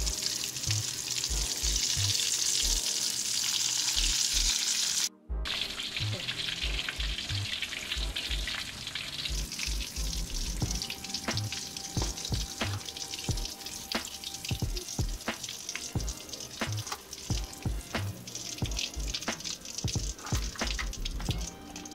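Duck pieces deep-frying in a wok of hot oil, a steady sizzle that is loudest in the first few seconds, with many small clicks and knocks of metal tongs against the wok as the pieces are turned and lifted out.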